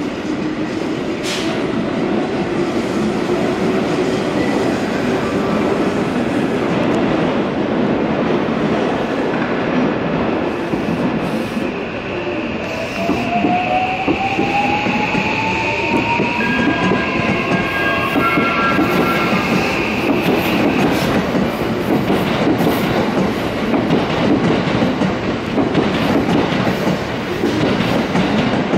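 Electric commuter train pulling out of a station platform: its motor whine rises steadily in pitch as it picks up speed, over the steady noise of its wheels on the rails.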